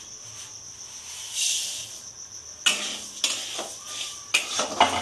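Dry moong dal poured into hot mustard oil in a kadai with a short hiss, then a metal spatula scraping and stirring the dal in the pan, in repeated scrapes from about two and a half seconds in. A steady high-pitched whine sounds beneath it.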